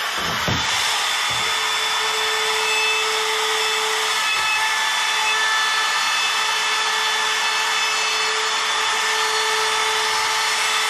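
Compact trim router running and cutting a rounded radius along the edge of a wooden board: a steady high whine over a loud rushing noise, with a few knocks at the start as the board is set down.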